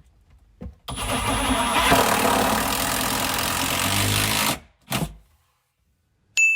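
Cordless power driver running a screw in for about four seconds, then a short second burst as the trigger is pulled again: screwing a base cabinet to the wall.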